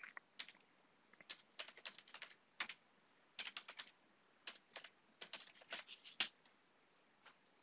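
Faint computer keyboard typing: a run of irregular, quick keystrokes that stops about six seconds in.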